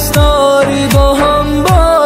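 Persian pop song: a melody that slides between notes over a steady beat of deep kick drums whose pitch drops with each hit.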